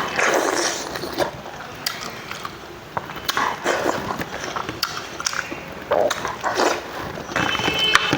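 A person eating: irregular chewing and biting sounds with scattered short clicks.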